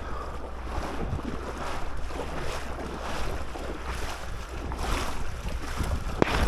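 Wind buffeting the microphone in uneven gusts, with a single sharp click near the end.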